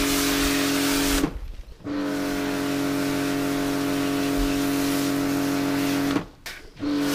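Kärcher K5 electric pressure washer running with a steady motor hum under the hiss of a snow-foam lance spraying. It cuts out suddenly twice, about a second in and again about six seconds in, for about half a second each time, as the trigger is released and the pump stops, then starts straight back up.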